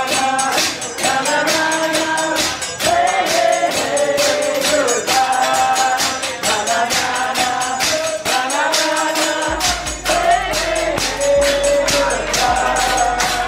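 Music: singing in short melodic phrases over a steady, fast percussion beat.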